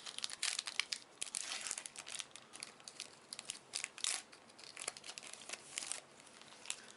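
Yu-Gi-Oh booster pack's foil wrapper being crinkled and torn open by hand: many quick sharp crackles that die down about six seconds in.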